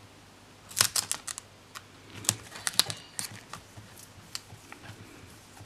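Washi tape being pulled off its roll and pressed down onto a paper planner page by hand: short, crisp clicks and ticks in a few quick clusters.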